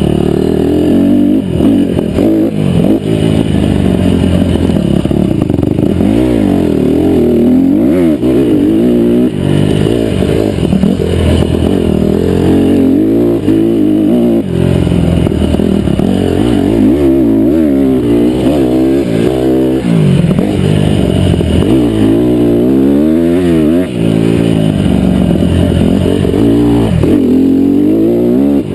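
Mini bike engine heard from on board while ridden hard, its pitch rising and falling again and again as the throttle is opened and shut.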